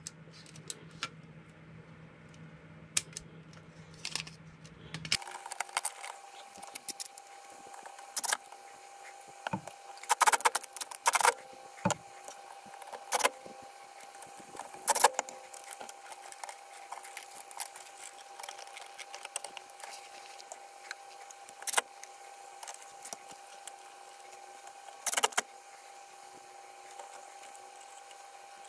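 Irregular clicks and knocks of plastic and metal parts being handled as a cassette deck mechanism and its plastic boombox case are taken apart, with quiet gaps between the knocks.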